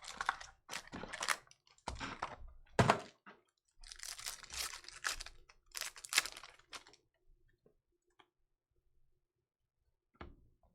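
Crackling, crinkling and rustling of a trading-card pack's foil wrapper being torn open and cards being handled, in a quick run of short rustles that dies down after about seven seconds to a few faint ticks.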